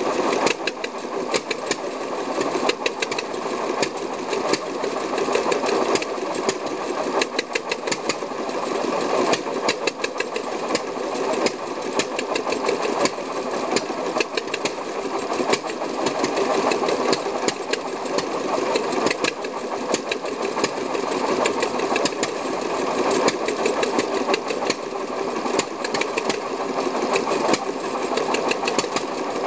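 Vintage Deutz stationary engine running steadily, with a rapid, slightly uneven knocking beat from its firing strokes.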